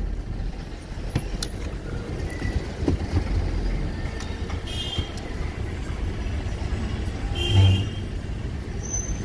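Road noise from a moving car with its window open: a steady low rumble of the engine, tyres and street traffic. About seven and a half seconds in there is a brief louder pitched sound.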